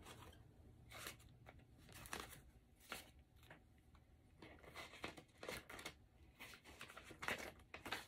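Faint, intermittent rustling and crinkling of paper banknotes being handled and shuffled.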